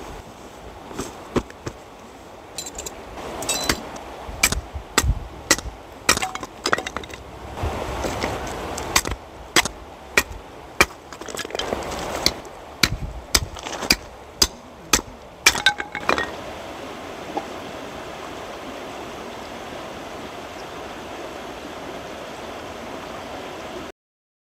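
Irregular sharp clicks and clinks of hard objects being handled, dozens over about fifteen seconds. After that only a steady hiss remains, which cuts off abruptly near the end.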